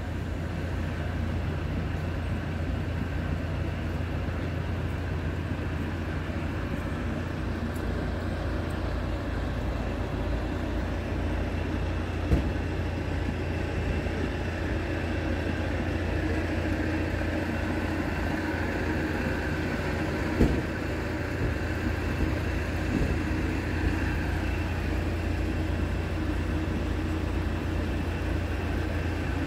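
Scania R 450 tractor unit's 13-litre six-cylinder diesel idling steadily, a constant low hum. Two sharp clicks sound, one about twelve seconds in and a louder one about twenty seconds in.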